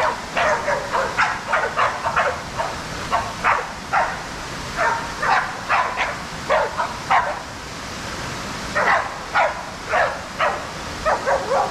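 Pig-hunting bailing dogs barking hard and fast at a wild boar they are holding at bay, several barks a second, with a brief lull about two-thirds of the way through.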